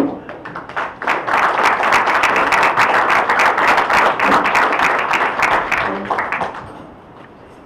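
A roomful of people applauding. The applause starts about a second in and dies away near the end, after a single bump at the very start.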